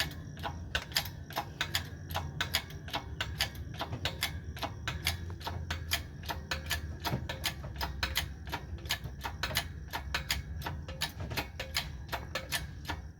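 Hydraulic shop press running as it pushes a new front wheel bearing into the steering knuckle: steady rapid clicking, about five a second, over a low hum.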